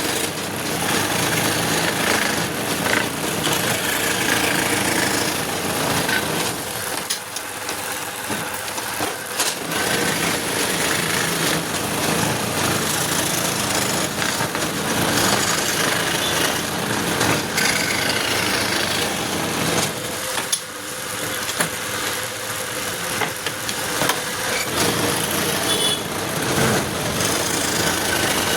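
Power tool running and cutting wood, a steady mechanical whine, dipping briefly twice.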